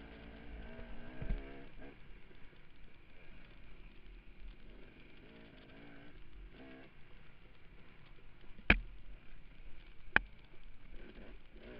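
Dirt bike engine revving up and down while riding a rough trail, picked up by a camera mounted on the bike. Near the end come two sharp knocks about a second and a half apart.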